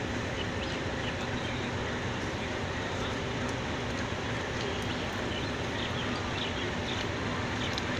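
Mobile crane's diesel engine running steadily under load as it holds a steel girder, within a constant outdoor din with a few faint high chirps.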